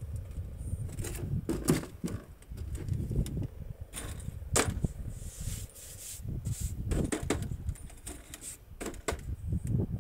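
A folding camp table being unfolded and set up: a dozen or so sharp clicks, knocks and clatters of its legs and frame, spread through the whole time, over a low rumble.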